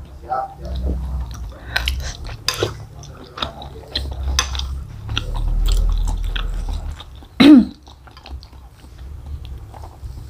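Close-miked mouth sounds of eating bakso aci, chewy tapioca balls, meatballs and noodles in broth: chewing with many small wet clicks. One short, loud sound with a falling pitch comes about seven and a half seconds in.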